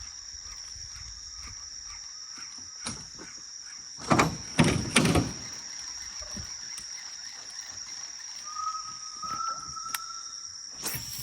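Steady high-pitched drone of a forest insect chorus. Three loud sudden knocks or splashes come about four to five seconds in, and a short whistle-like call sounds twice near the end.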